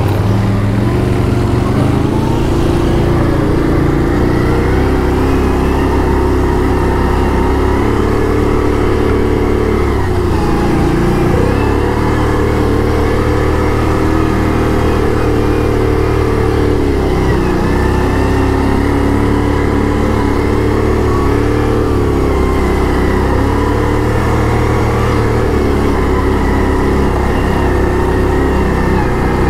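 ATV engine running while being ridden, its pitch rising and falling repeatedly with the throttle.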